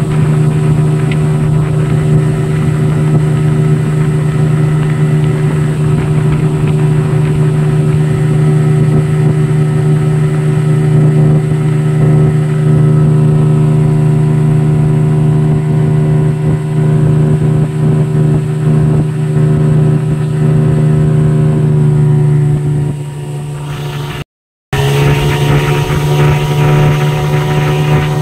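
Mercury 15 hp outboard motor running steadily under way at part throttle, an even, smooth engine note with water rushing past the hull. About 23 seconds in it drops in level, cuts out briefly, and resumes with more wind and splashing in the mix. The engine is in normal, healthy running order.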